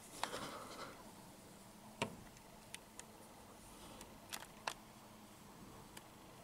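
Eurasian bullfinch pecking seeds on a plastic feeding tray: about half a dozen scattered sharp clicks and taps of beak on seed and plastic, with a short soft rustle just after the start.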